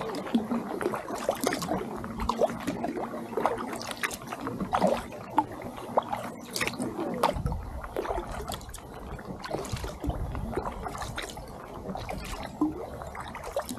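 Kayak paddling on calm lake water: the paddle blades dip in with small splashes, and water drips and trickles off them between strokes. A low rumble comes in about halfway.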